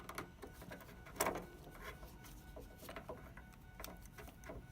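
Small irregular clicks and taps of an LED bulb and its plastic socket being handled and fitted into a van's front corner turn-signal lamp, with one sharper click about a second in.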